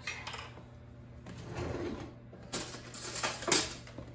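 Kitchen utensil drawer pulled open and metal cutlery clinking and rattling as a hand rummages through it for a spoon. It is a string of clicks and clatters, loudest about three and a half seconds in.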